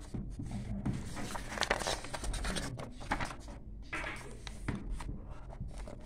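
Paper pages of a bound catalogue rustling and brushing as they are turned and handled by hand, with faint irregular taps.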